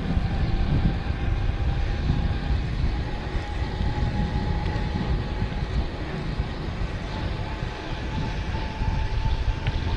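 Wind buffeting the microphone on an Eahora XC100 electric bike riding at about 20 mph, over a thin steady whine from its hub motor that rises slightly in pitch in the second half as the bike speeds up.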